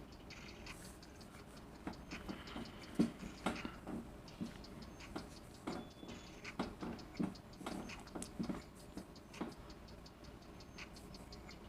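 Faint, tinny music leaking from Luoyme Sports true wireless earbuds worn in the ears, heard mostly as its ticking percussion in a quick rhythm.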